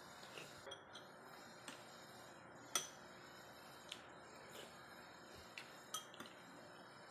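Metal spoon clinking against a stemmed drinking glass as gelatin salad is scooped out: about ten light clinks spread out, the loudest near the middle.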